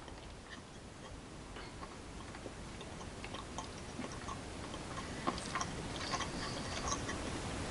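A person quietly chewing a piece of milk chocolate, with faint, irregular little mouth clicks.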